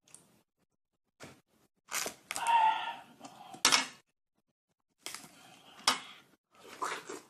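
Close-miked watermelon eating: sharp clicks and knocks of a knife working on watermelon against a plastic plate, then moist crunching bites of the fruit. The loudest cluster comes about two to four seconds in, with a brief higher squeak inside it and another sharp click near six seconds.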